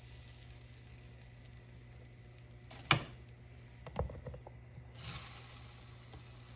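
Lid of a Nostalgia MyMini heart waffle maker being handled and shut over egg on its hot plates: a sharp clack about three seconds in, a few knocks near four seconds, and a short hiss about five seconds in. Faint sizzling and a steady low hum run underneath.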